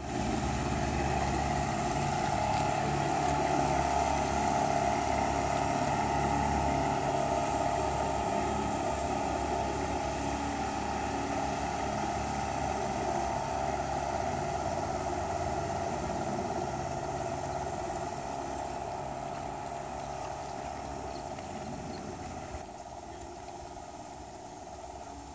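Motorboat engine running steadily, slowly fading over the second half as the boat moves away.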